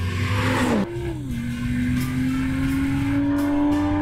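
BMW M240i's turbocharged 3.0-litre straight-six accelerating hard. A rushing noise fills the first second, and the engine note drops about a second in as it shifts gear, then climbs steadily through the next gear.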